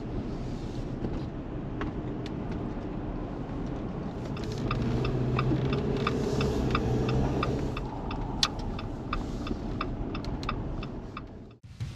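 Inside a car on the move: steady engine and road rumble, with a turn-signal indicator ticking evenly at about two ticks a second through the second half. The sound drops away just before the end.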